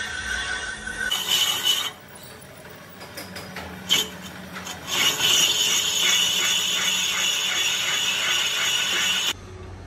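Lathe cutting tool machining a spinning cast tractor brake drum: a loud scraping cut with a high squeal. The cut stops about two seconds in, with a single click partway through the lull. It resumes about five seconds in with a steady rapid chatter and breaks off shortly before the end.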